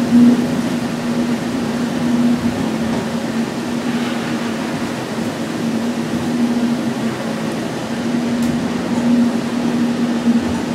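Cabin noise inside a moving DCC Doppelmayr Cable Liner people-mover car: a steady hum with one constant low tone.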